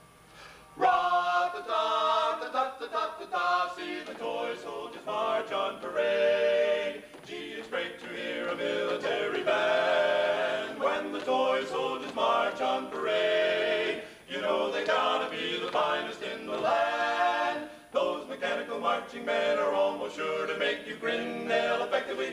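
Male barbershop quartet singing four-part a cappella harmony, coming in sharply about a second in after near silence.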